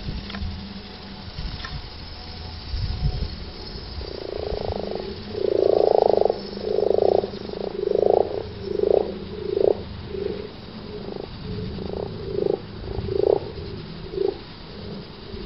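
Common frogs croaking in a pond in the breeding season: a run of short, low croaks, some overlapping, about one or two a second, starting about four seconds in and loudest about two seconds later.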